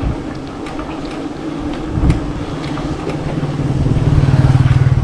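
Road traffic: a motor vehicle's engine hum that grows louder through the second half as it draws near, over steady road noise.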